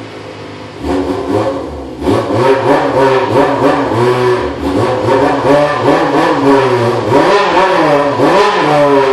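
Suzuki GS250FW inline-four motorcycle engine doing a 'call': the throttle is blipped over and over in a rhythm, the engine note rising and falling with each blip. It starts off idling, with one short rev about a second in, before the steady run of blips from about two seconds.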